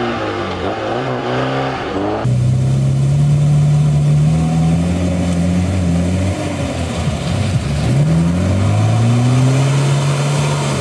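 Off-road 4x4 engine revving up and down in a mud pit, then abruptly a louder Lada Niva engine revving hard under load as it claws through deep mud with its wheels spinning. Its revs climb and hold, sag about halfway through, then climb and hold again.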